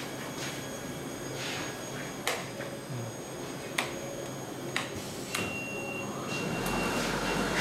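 Rocker switches on a shrink tunnel's control panel clicking on one after another, four sharp clicks. With the last one a thin whine starts, and near the end the machine starts running with a low hum.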